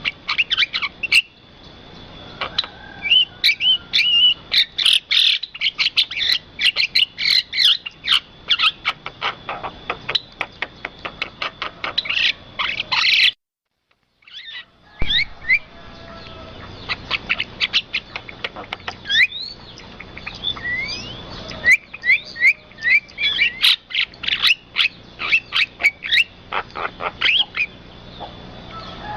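Birds chirping and twittering in a dense run of short calls, quick rising whistles and sharp clicks. The sound drops out completely for about a second and a half about halfway through, then the chirping resumes.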